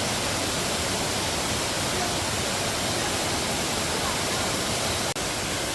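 Waterfall: a steady, even rush of falling water, briefly broken by a cut about five seconds in.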